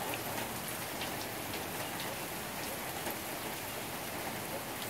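Heavy rain falling steadily, with separate drop hits standing out here and there against the even hiss.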